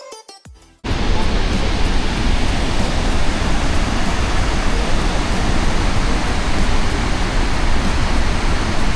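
Loud, steady rushing noise that begins abruptly about a second in and holds even throughout, heavy in the low end.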